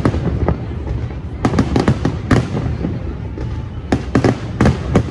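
Aerial fireworks bursting in a rapid, irregular string of sharp bangs over a continuous low rumble.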